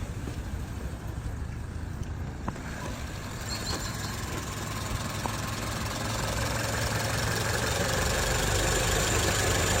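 Car engine running steadily after being started, with a low hum that grows gradually louder in the second half.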